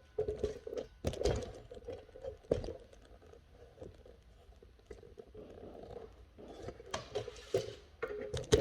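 Irregular knocks, clicks and scrapes of wooden pieces being handled and fitted by hand, with a few sharper knocks about a second in, at two and a half seconds and near the end.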